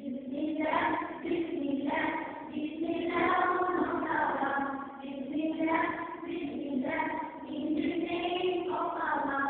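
A class of schoolchildren singing a song together as a children's choir, in a series of sung phrases with short breaks between them.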